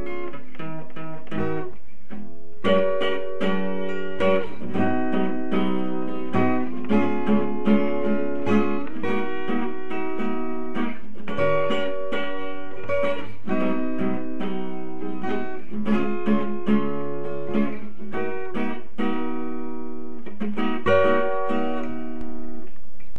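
Background music: guitar playing a steady run of chords and notes.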